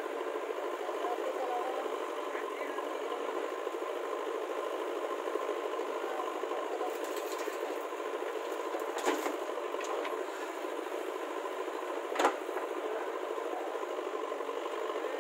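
JCB backhoe loader's diesel engine running steadily while it works its bucket, loading earth into a tractor trailer. Two sharp knocks from the bucket work break through, about nine seconds in and a louder one about twelve seconds in.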